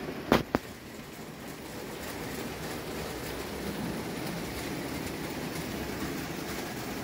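Antique Carette tin-toy hot-air (Stirling) engine and belt-driven toy models running with a steady mechanical clatter. Two sharp clicks come about half a second in.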